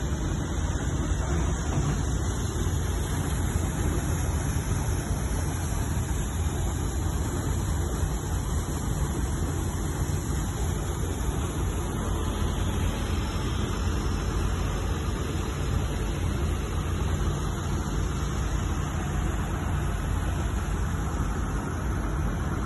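Heavy construction machine's diesel engine running steadily, a deep even rumble with no change in pace.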